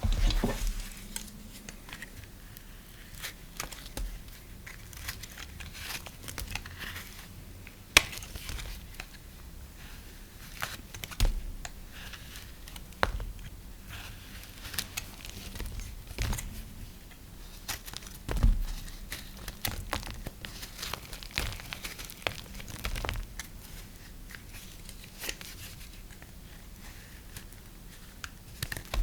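Dry soap being cut and crumbled: crisp crackling and crunching, with scattered sharp snaps and occasional soft thuds.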